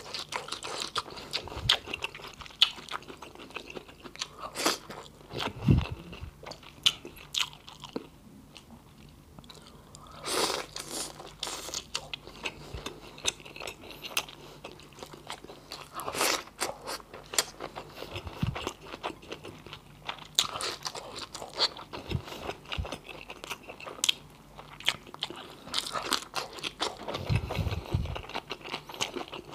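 Close-miked eating sounds: a man biting and chewing boiled vegetables and rice, with many irregular crunches and wet mouth clicks.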